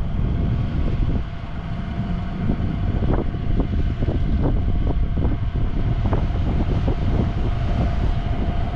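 4x4 SUV driving off-road, its engine running with a heavy, steady low rumble, and a scatter of short creaks through the middle.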